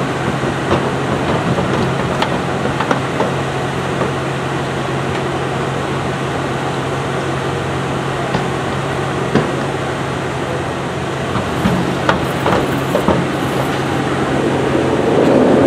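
Steady low mechanical hum from the standing circus train, with scattered sharp knocks of hooves on the wooden loading ramp.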